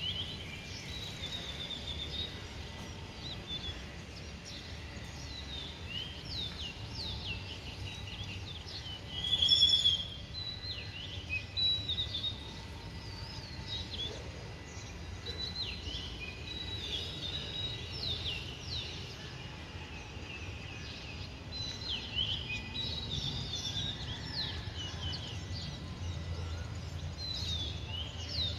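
Many small birds chirping and calling in quick, overlapping short notes over a steady low background rumble. A single louder, higher sound about nine and a half seconds in.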